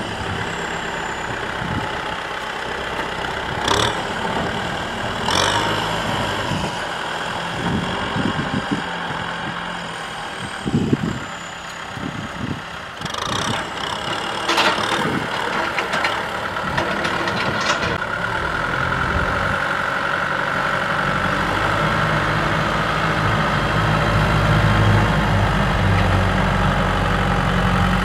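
Kubota M6040SU tractor's diesel engine running steadily while it pulls a disc plough through dry ground, with a few sharp knocks in the first half. The engine grows louder and deeper in the last third as the tractor comes close.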